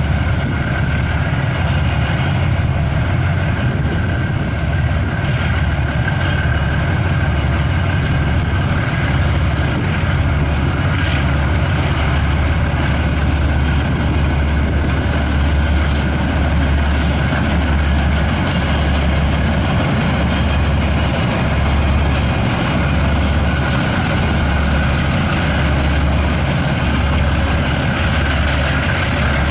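KiwiRail DX-class diesel-electric locomotives, twelve-cylinder GE engines, running as they haul a freight train slowly past. A deep, steady engine throb that pulses gently about once a second, with a steady higher hum over it.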